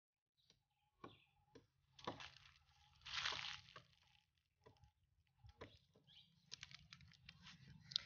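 Near silence with faint scattered clicks and short rustles, the longest rustle a little after three seconds in.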